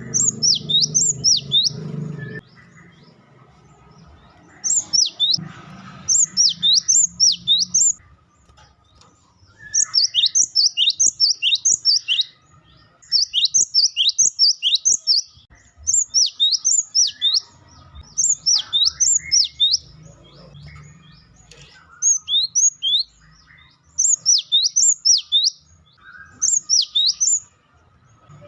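Gelatik batu (cinereous tit) singing: quick runs of loud, high, down-slurred whistled notes, each run lasting a couple of seconds, with short pauses between them.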